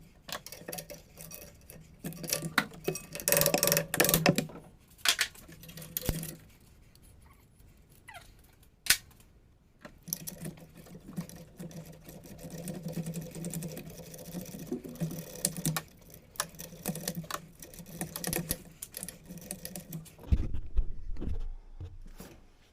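Hand tools clicking and clanking on metal, with rapid ratchet-like ticking, during work on a truck engine's turbo and exhaust manifold. A low hum comes and goes underneath, and a heavier low knocking comes near the end.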